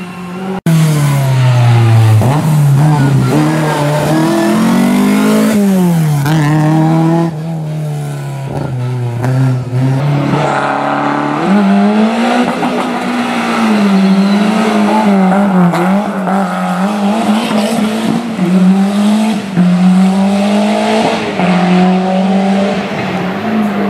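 Historic rally car engine driven hard, revs climbing steeply and then dropping off on lift-offs and downshifts, over and over. A brief sudden dropout comes about half a second in.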